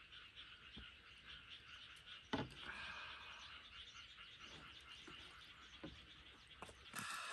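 Faint frog chorus, a steady mass of croaking trills, with a few short sharp clicks and knocks over it, the loudest about two and a half seconds in.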